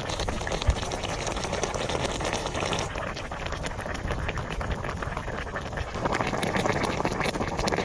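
A pot of braised pork belly and red fish bubbling as it simmers down, a dense run of small pops and gurgles from the thick sauce.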